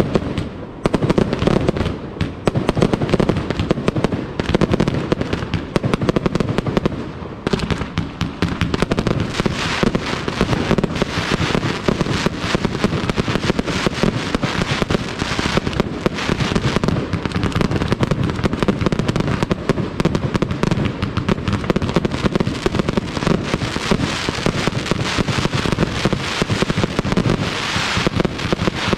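Aerial fireworks display: a dense, unbroken barrage of shell bursts going off in quick succession.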